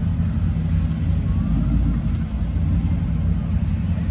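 Dodge Charger widebody's V8 running at low revs as the car rolls slowly past, a deep, steady exhaust note.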